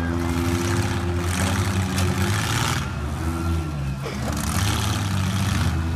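Demolition derby car engines running and revving, their pitch holding steady, then rising and falling several times.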